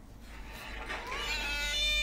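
Hungry stray cat giving one long meow that starts about a second in, rising in pitch at first and then held: a call for food and attention.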